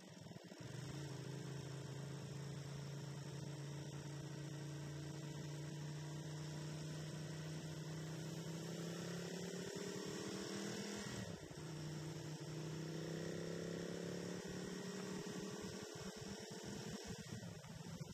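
Motorcycle engine running under way, heard from a bike-mounted camera as a steady low drone. Its pitch climbs, breaks off briefly about eleven seconds in, then climbs again.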